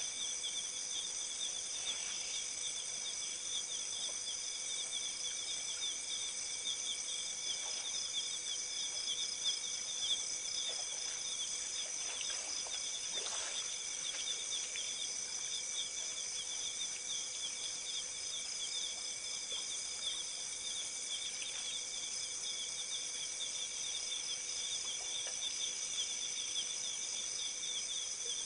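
A steady chorus of night insects, several high-pitched trills going on at once, one of them pulsing rapidly. A faint steady hum lies underneath, and a few faint soft sounds come about halfway through.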